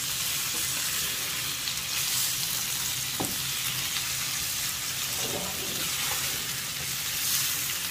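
Fried chicken pieces sizzling in oil in a non-stick pan as a spatula stirs them with curry leaves: the dry sauté stage of chicken 65, with the pieces turning crisp. A steady high hiss, with a short tick of the spatula about three seconds in.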